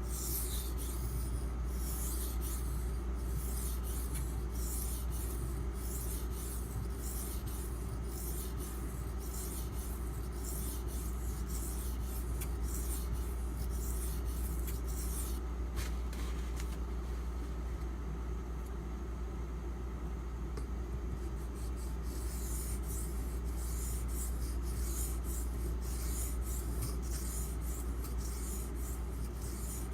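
Steel knife blade (8Cr13MoV) being stroked back and forth on a wet Imanishi combination water stone, a quick run of gritty scraping strokes. The strokes ease off for a few seconds in the middle, with a single click, then pick up again. A steady low hum runs underneath.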